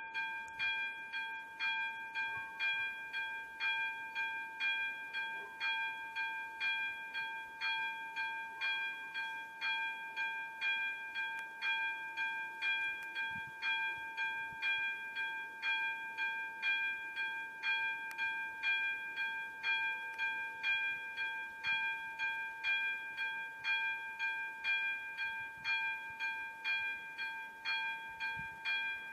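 Electronic warning bell ('umíráček') of an AŽD 97 railway level crossing, ringing about two strikes a second over a steady bell-like tone. It is the crossing's warning that a train is approaching.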